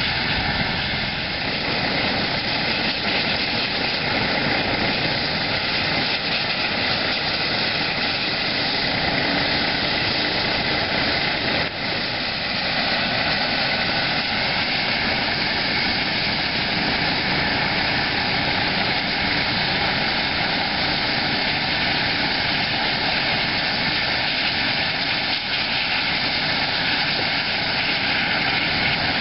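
Eurocopter EC135 medical helicopters running on the ground: a steady high turbine whine over the even rush of the turning rotors.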